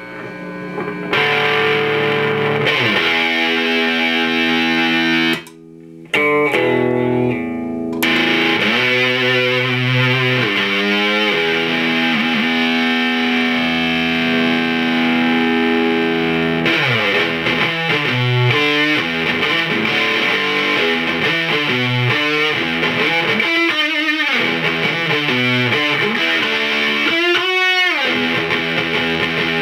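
Fender electric guitar played through a Kitchen Electronix Ragemanium distortion pedal: heavily distorted chords and riffs with long sustain. There is a brief break about six seconds in, and wavering bent notes near the end.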